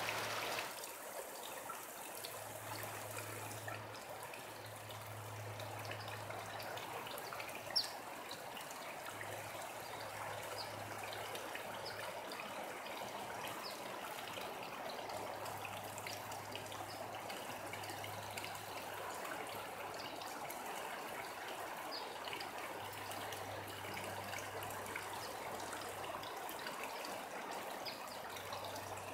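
Rainwater running off steadily, trickling and flowing, with scattered small drips. There is a sharp click about eight seconds in and a low hum that comes and goes.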